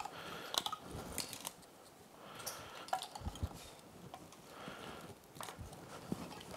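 Wiring harness being handled and laid onto an outboard powerhead: soft rustling of wires and plastic looms with scattered small clicks and knocks.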